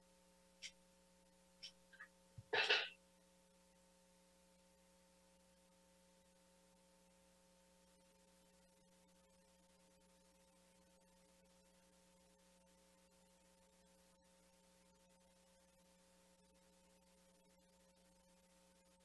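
Near silence with a faint steady hum. Near the start come a few soft clicks, then, about two and a half seconds in, one short, louder puff of breath close to a headset microphone.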